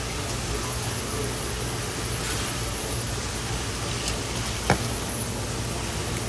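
Steady hum and hiss of restaurant background noise, with a faint high whine and one sharp click or clatter about three-quarters of the way through.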